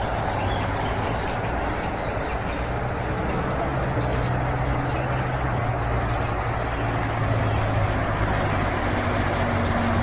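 Steady low rumble and hiss of outdoor background noise, with a low hum underneath.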